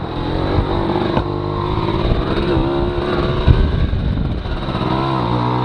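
1992 Aprilia Classic 50 moped's small two-stroke engine running while riding through a turn, its pitch rising near the end as it accelerates. A single thump about three and a half seconds in.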